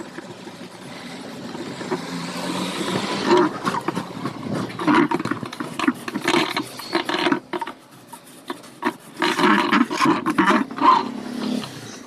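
A hand and cloth scrubbing the inside of a plastic washing-machine tub: irregular rough rubbing strokes that come thickest from about three seconds in, ease off briefly midway, then pick up again until near the end.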